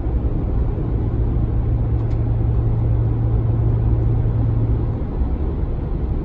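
2019 Ram 1500 cabin drone: a loud, steady low hum over road and engine rumble, cutting off about five seconds in. The drone is a fault tied to the truck's sound amplifier and persists even after that amplifier was replaced.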